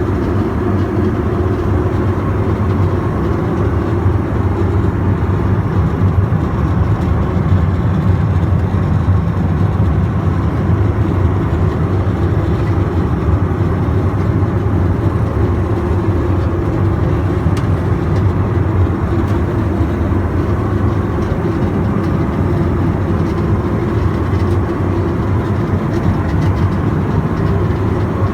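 Steady cabin noise inside an Airbus A321: an even, loud rumble of the jet engines and airflow with no changes in pitch.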